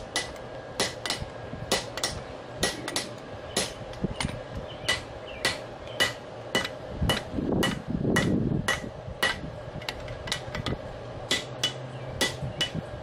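Hand hammer striking a red-hot railroad spike on a steel anvil in a steady run of blows, about three a second, each with a short metallic ring. The blows are upsetting and flattening the hot steel.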